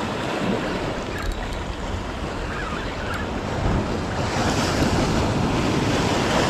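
Sea surf breaking and washing over shore rocks, with wind buffeting the microphone; the wash swells louder about two-thirds of the way through as a wave breaks.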